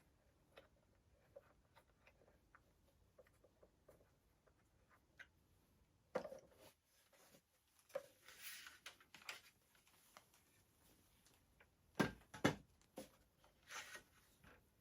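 Parts of a toy rifle being handled during assembly: faint small clicks, then louder knocks, brief rustling, and two sharp knocks half a second apart near the end.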